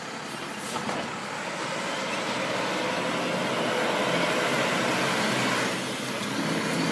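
Mack garbage truck's engine running as the truck drives up toward the curb, growing steadily louder as it nears, then easing off briefly near the end before picking up again.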